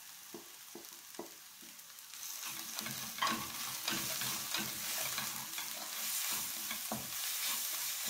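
Spatula scraping and stirring powdered spices into onion, ginger and garlic paste frying in mustard oil in a kadai: the spices being fried in the oil. A few separate scrapes at first, then about two seconds in the sizzle picks up into a steady hiss under repeated scraping strokes.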